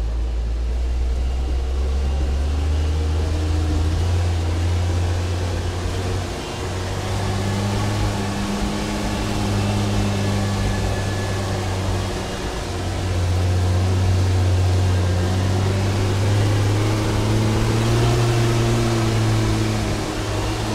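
1978 Bedford M Series 4x4 fire truck's petrol engine heard from inside the cab while driving, its pitch climbing as it pulls and breaking off briefly twice, about six and twelve seconds in. The engine has just had its points, spark plugs and fuel filter seen to, to cure rough running under load.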